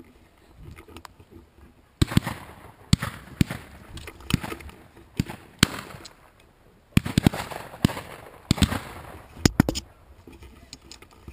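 Shotgun fire from several guns at flying pheasants: two rapid strings of sharp bangs, the first starting about two seconds in and the second about seven seconds in, each shot followed by a short ringing tail.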